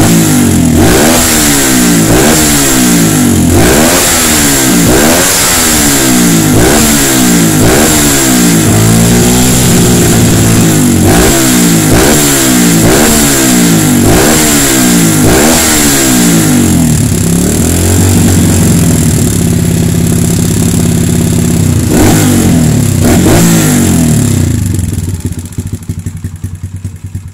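Kawasaki KLX 150's single-cylinder four-stroke engine being blipped on the throttle about once a second, its pitch rising and falling with each blip, then held steadier for a few seconds, blipped twice more, and dropping back quieter near the end. The PE28 carburettor has just been tuned for the highest RPM on the air screw, and the exhaust does not pop when the throttle is released.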